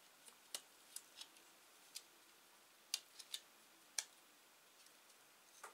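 Quiet, irregular light clicks and ticks of fingers handling a plastic fishing-line spool while a homemade elastic line keeper is pulled over it.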